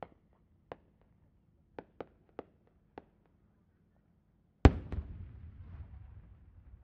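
Several faint sharp pops, then about two-thirds of the way in a single loud boom as an aerial firework shell bursts, followed by a long rumbling echo that slowly fades.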